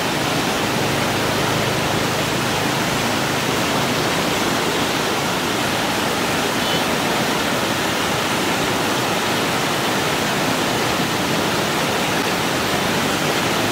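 Steady rush of muddy floodwater pouring over a low dam, the white water churning without a break.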